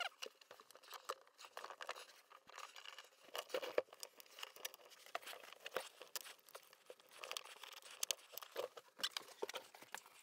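Faint scattered knocks, clicks and rustling as a person crawls on the floor and works a pedestal dinette table down to bench height, with a few firmer knocks mid-way and near the end.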